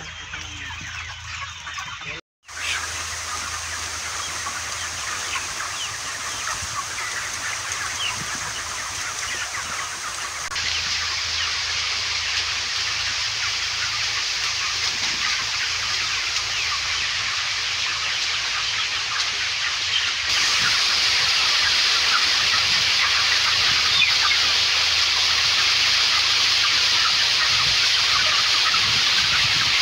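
Dense, continuous chatter of a large flock of chickens, countless overlapping calls, over a steady low hum. It drops out for a moment about two seconds in and steps up in loudness twice, near the middle and again later on.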